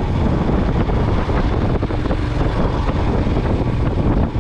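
Royal Enfield Himalayan's single-cylinder engine running steadily while riding, with wind noise on the microphone.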